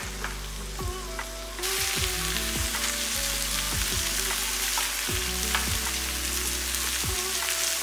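Raw banana slices sizzling in masala in a nonstick frying pan as a spatula turns them over, with short scrapes and taps of the spatula against the pan. The sizzle gets louder about a second and a half in.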